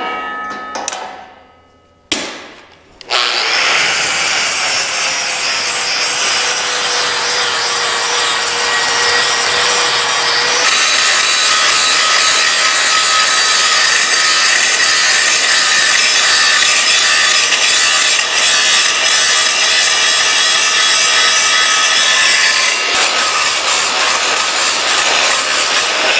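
Angle grinder grinding down the built-up weld on a steel rerailing frog. A steady, harsh grind with a faint whine starts about three seconds in and keeps on, its tone shifting slightly about ten seconds in.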